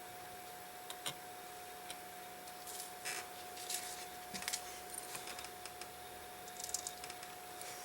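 Irregular small metallic clicks and taps of watchmaker's tweezers and tools handling pocket-watch parts, over a faint steady whine.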